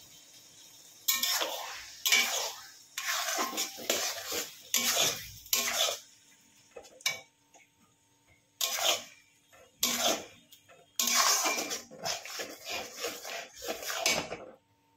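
Metal kitchen utensils scraping and clattering against cookware. It comes in a run of irregular strokes, each about half a second long, starting about a second in and stopping just before the end, with a short pause midway.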